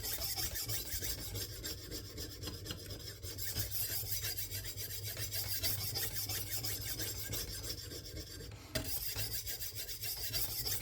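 A 600-grit sharpening stone on a KME guided sharpening system stroking back and forth along the edge of a 52100-steel bunka kitchen knife, a steady, fine, smooth rasping, with a brief break near the end.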